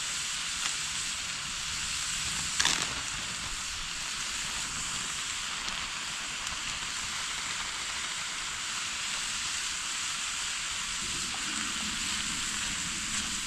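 Meat and vegetables sizzling steadily in a pan on a small camp stove. There is one sharp clink about two and a half seconds in.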